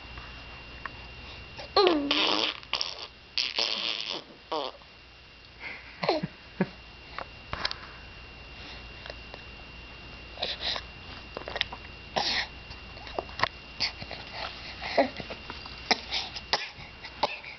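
A baby babbling and blowing raspberries: scattered short vocal sounds with gliding pitch and spluttering lip-blown bursts, loudest about two to five seconds in.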